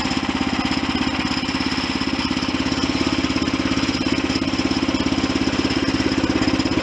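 Small gasoline engine of a portable band sawmill running steadily, with an even, rapid firing pulse.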